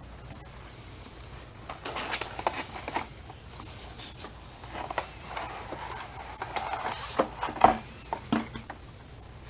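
A flashlight box being opened and its contents handled: irregular rustling of packaging with scattered small clicks and knocks, the sharpest about three-quarters of the way through.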